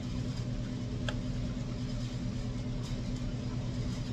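Steady low mechanical hum, with a single faint click about a second in.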